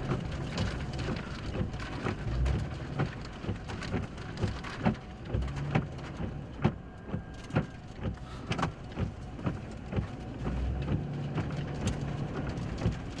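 Heavy rain beating on a vehicle's roof and windows: a steady hiss with sharp, irregular louder drops hitting, over a low rumble.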